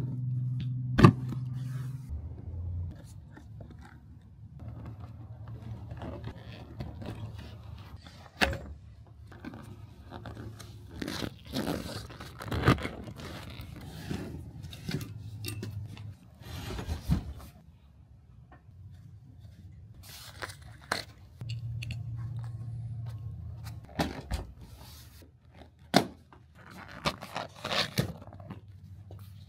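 Scraping, crunching and tearing sounds of hands working on car seat upholstery, with many sharp clicks and knocks. A low hum comes and goes.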